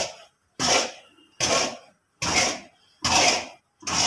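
A long metal stirrer scraping round a large metal kadhai full of thick, hot lac mixed with khurand abrasive grit, in regular strokes about every 0.8 s, each starting sharply and dying away. This is the long hand-mixing of the lac and abrasive for a lac grinding wheel, the mix now smooth like chocolate.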